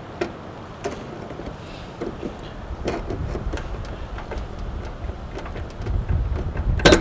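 Pliers clicking and scraping on an AC contactor's metal terminals as the spade connectors are pulled off the load side, a dozen or so small clicks with a louder clatter near the end. A steady low rumble lies under it.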